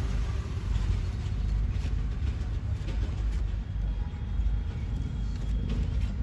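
A steady low rumble throughout, with a few faint scrapes of a hand spreader smoothing body filler onto a car's rear quarter panel.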